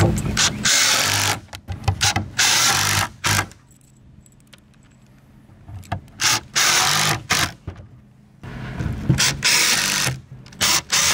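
Cordless impact driver driving 50 mm batten screws into pallet timber, in three runs of rapid hammering clatter with short pauses between: one in the first few seconds, one around the middle and one near the end.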